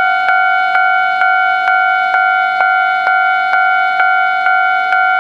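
Japanese railway level-crossing warning bell ringing, a two-tone ding struck steadily about twice a second.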